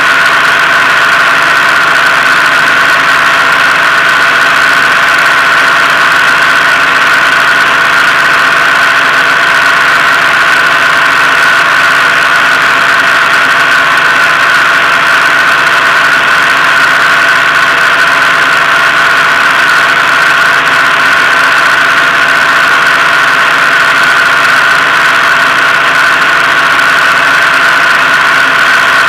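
Rans S-12 ultralight's pusher engine and propeller running in flight, a loud, steady drone that holds one pitch throughout.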